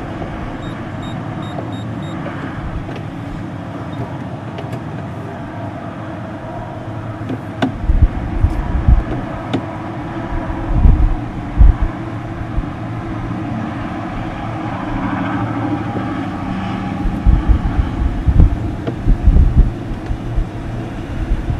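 E-Z-GO golf cart driving along, running steadily, with several loud low thumps along the way.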